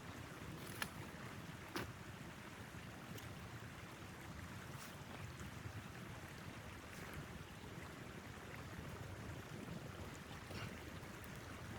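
Steady low rushing of wind against the tent, with a few sharp crackles from firewood burning in a wood stove, about a second in, near two seconds and near the end.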